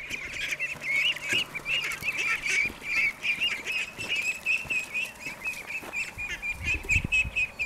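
A flock of ducklings peeping continuously, many short high calls overlapping, as a herding dog drives them along. A brief low rumble comes near the end.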